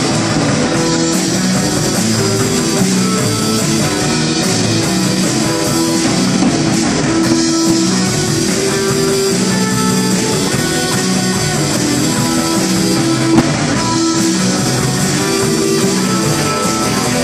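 Live rock band playing an instrumental passage: electric guitars, bass guitar and drum kit, with no singing.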